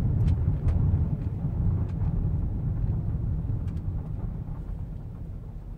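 Low rumble of road and drivetrain noise heard from inside the cabin of a 2011 Lincoln MKX on the move. It grows gradually quieter toward the end, with a few faint light ticks.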